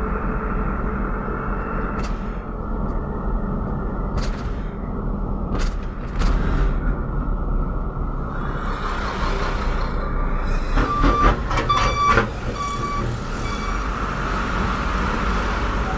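Steady engine and road noise from a vehicle riding in traffic among trucks. A few brief sharp hisses come through in the first half. Near the end there is a run of short high-pitched beeps.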